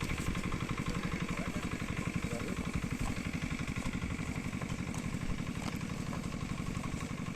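Engine running steadily with a rapid, even chugging of about ten beats a second.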